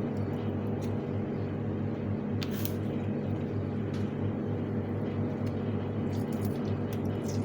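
A steady low hum throughout, with a few faint wet squelches and clicks as lemon juice is squeezed over masala-coated fish.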